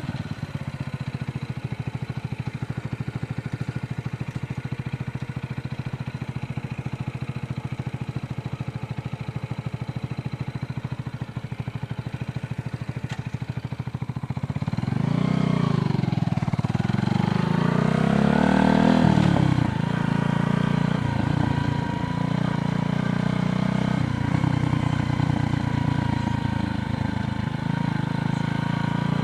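Motor vehicle traffic on a road: a steady low rumble, then from about halfway engines rising and falling in pitch as vehicles accelerate and pass.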